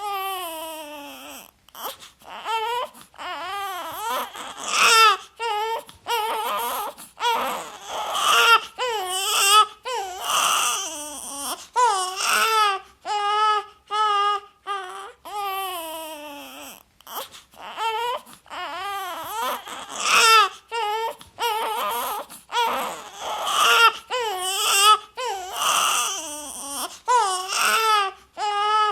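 A baby crying: repeated wails, each a second or so long, that waver and bend in pitch, broken by short breaths.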